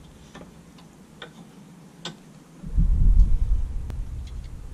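A few light metallic clicks, about a second apart, as a short bolt is fitted to fasten an LED light bar to its bracket. About two-thirds of the way in, a louder low rumble sets in.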